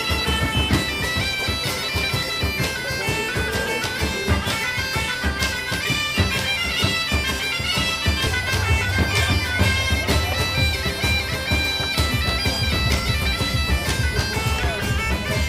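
Bagpipe music: a melody of short, quickly changing notes over a drum beat.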